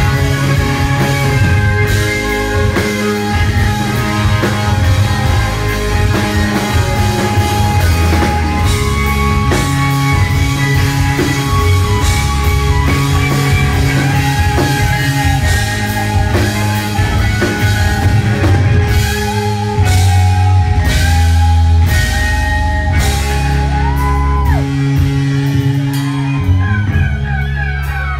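Live rock band playing loud: electric guitars, bass guitar and drum kit, heard close to the stage.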